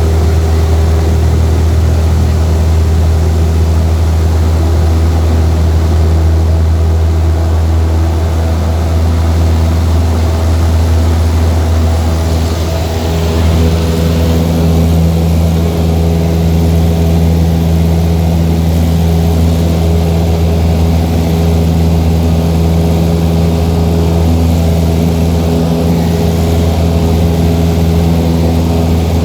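Light aircraft's piston engine and propeller running steadily under power during a takeoff. The tone shifts slightly about 13 seconds in.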